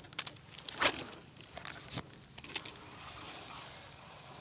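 Handling noises from a spinning rod and reel being cast again: a few sharp clicks and knocks, the loudest about a second in, then a faint steady rustle.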